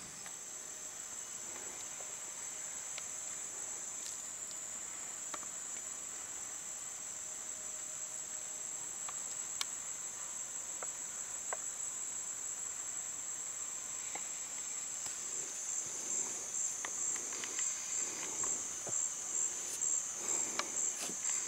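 Rainforest insects keeping up a continuous high-pitched shrill buzz, which turns to a rapid pulsing about three quarters of the way through. Footsteps rustle through leaf litter during the last few seconds.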